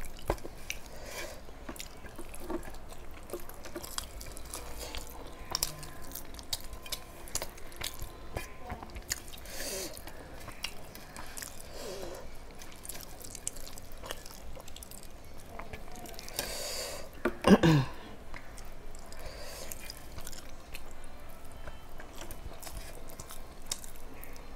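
A person chewing a mouthful of rice and chicken curry, with wet mouth sounds and small clicks scattered through. About two-thirds of the way through comes one brief, louder sound that falls in pitch.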